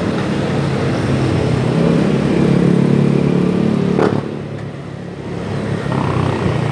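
An engine running with a steady hum that grows louder toward about four seconds in, where it drops off suddenly with a click, then builds up again near the end.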